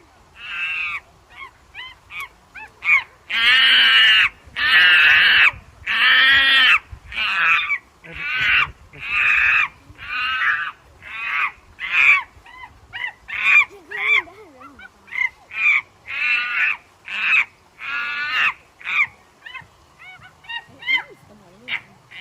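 Chimpanzee calling: a long series of high, hooting screams about one a second. The calls are longest and loudest about three to seven seconds in, then come shorter and quicker.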